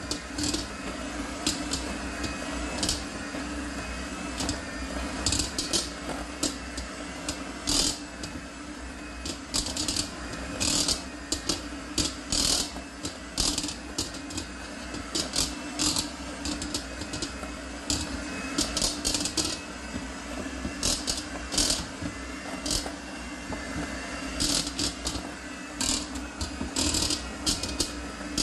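Kenwood electric hand mixer running steadily with two whisk beaters churning through shredded cooked chicken in a stainless steel bowl. Frequent sharp, irregular clicks sound as the beaters knock against the metal bowl.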